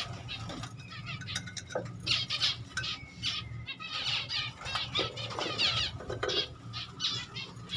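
Several finches chirping with many short, high calls in quick runs, with a few light knocks as a clay nest pot is handled. A low steady hum sits underneath.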